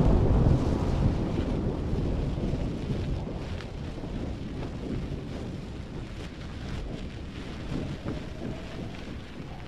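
A thunder rumble dying away over the first couple of seconds, giving way to a steady low storm wind with a few faint ticks.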